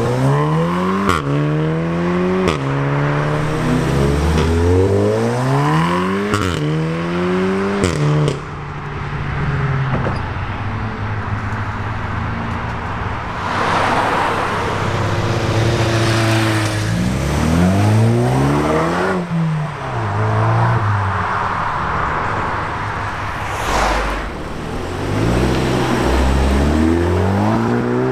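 Turbocharged four-cylinder hot hatchbacks accelerating hard one after another: a Volkswagen Golf 7 R's exhaust rising in pitch through several quick upshifts, with sharp cracks at the shifts, then an Opel Astra OPC passing and pulling away, and a Seat Leon Cupra accelerating with climbing revs near the end.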